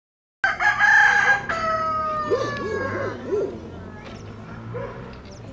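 A rooster crowing once, starting about half a second in, the call ending in a long, slowly falling note. A few short, low clucks follow.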